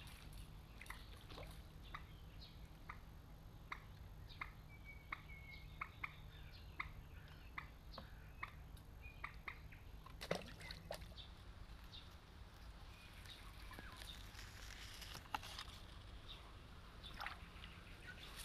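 Quiet lakeside ambience: faint short bird chirps and ticks about once a second over a low steady hum, with one louder sound about ten seconds in.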